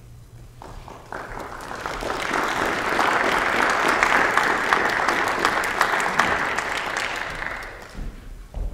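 Audience applauding: the clapping starts about half a second in, builds to a full round and dies away near the end.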